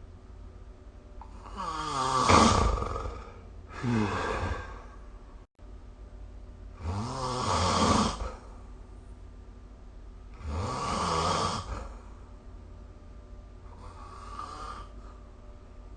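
A sleeping person snoring: five snores spaced two to four seconds apart, the last one near the end fainter than the rest.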